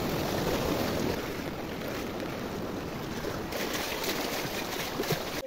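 Floodwater flowing over a road and through flooded fields: a steady rushing of water, a little louder in the first second.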